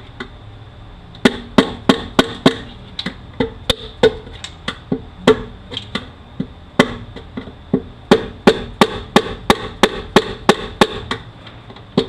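Hammer striking a long screwdriver to knock a stuck front cover out of a 5-45RFE transmission case: repeated sharp metallic blows with a short ring, starting about a second in and coming in quick runs of two to three a second. The cover is refusing to come out.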